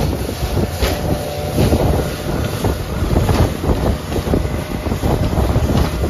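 Motorboat running at speed over choppy water, with wind buffeting the microphone.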